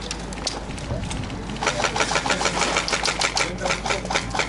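Airsoft electric guns (AEGs) firing on full auto: fast, rattling bursts of clicks that grow denser and louder about a second and a half in.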